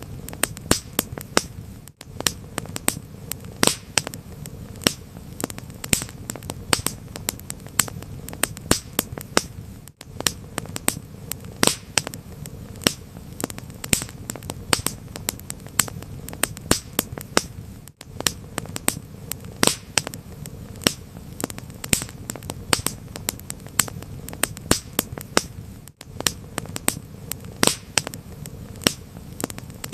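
Wood fire crackling steadily, with irregular sharp pops and snaps several times a second over a low hiss and rumble. The sound cuts out for an instant about every eight seconds.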